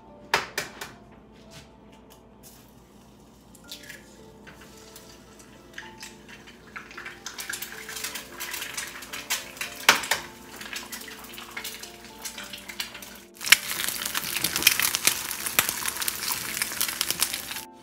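Eggs frying in hot oil in a small pan, sizzling and crackling. The sizzle builds once the eggs go in and gets louder about three-quarters of the way through. Soft background music plays underneath.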